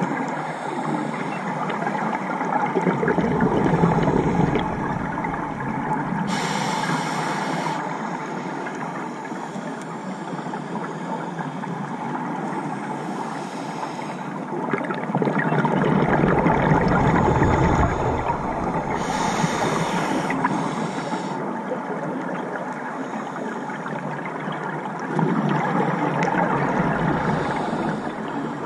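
Scuba diver breathing through a regulator, heard underwater: two short hissing inhalations and three longer bubbling exhalations, over a steady muffled noise.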